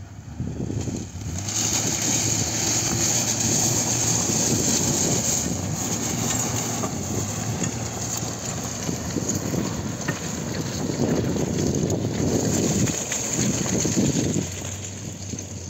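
Mazda Tribute's 3.0 V6 engine running while the vehicle drives, with tyre and road noise that swells and eases and wind buffeting the microphone.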